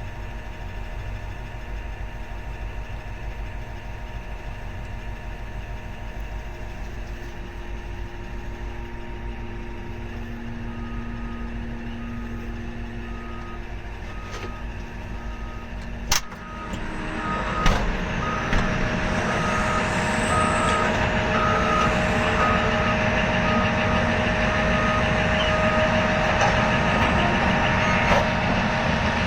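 Large mining excavator's diesel engine running steadily, with a truck's reversing alarm beeping about once a second from about a third of the way in. A little past halfway there is a sharp click, and the engine sound rises and stays louder as the machine works under load.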